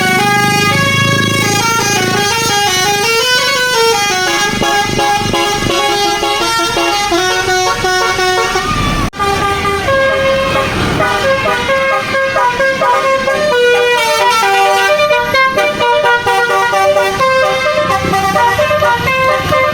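A bus's telolet basuri horn, a multi-tone musical air horn, playing a tune in stepped notes. It breaks off suddenly about nine seconds in, and another stretch of the tune follows.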